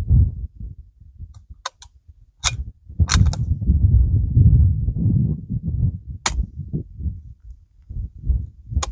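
Several suppressed .22 LR shots through a B&T rimfire silencer, each a short sharp crack, fired at irregular intervals a second or more apart. Wind buffets the microphone with a low rumble between the shots.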